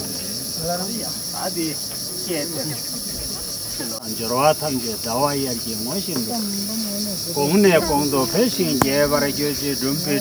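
Steady high-pitched drone of insects, with several voices chanting beneath it, growing fuller about halfway through.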